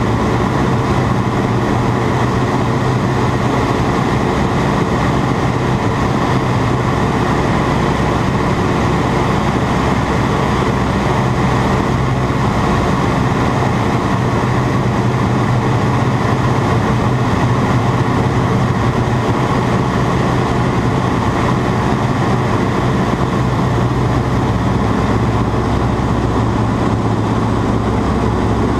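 Ag Cat agricultural biplane's engine running steadily at constant power, a loud, even drone that does not change.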